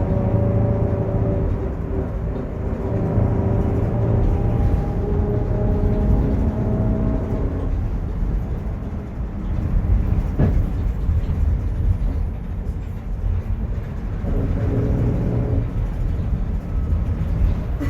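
Mercedes-Benz OF-1721 city bus driving, its rear differential growling: a steady low rumble with a pitched whine over it for the first several seconds, fading, then returning briefly near the end. A single sharp knock sounds about ten seconds in.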